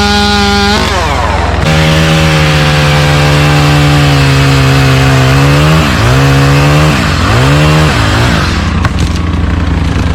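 Chainsaw engine at high revs, its pitch dropping as it bites into wood, then running steadily through the cut. It bogs down twice under load a little past the middle and eases off near the end, over a steady low engine drone.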